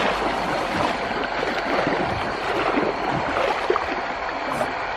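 Water splashing and sloshing: a continuous, irregular wash of small splashes.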